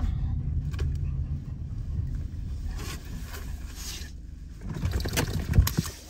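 Car moving slowly, heard from inside the cabin: a low engine and tyre rumble that fades after about two seconds, then a few knocks and thuds near the end.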